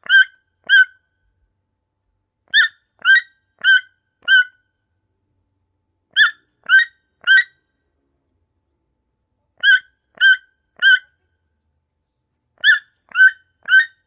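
Toucan calling: short, harsh pitched notes in groups of three or four, each group repeating about every three and a half seconds, with silence between.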